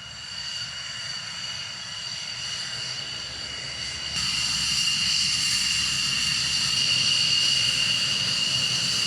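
F-16 fighter jet engine running with a steady high whine over a rushing noise, jumping louder about four seconds in.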